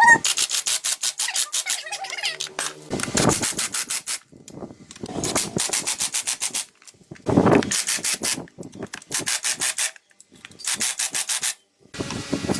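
Rapid back-and-forth rubbing or scrubbing strokes on a hard surface, about five a second, in several short runs with brief pauses between them.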